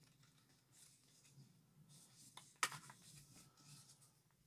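Faint handling of Pokémon trading cards: soft sliding and rustling of cards, with one sharp click a little over halfway through.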